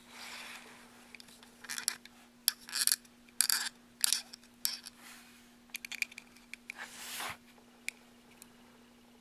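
Hard resin parts of a prop gun scraping, rubbing and clicking as a knobbed firing-pin rod is worked into the back of the gun body, with a few sharp clicks about halfway through.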